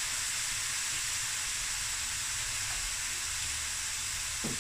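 Diced chicken breast frying in olive oil in a stainless steel pan, giving a steady sizzle.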